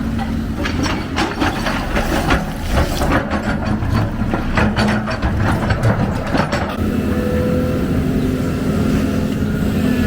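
Excavator's diesel engine running steadily, with a quick series of clanks and rattles from about half a second in to about seven seconds in, then only the engine.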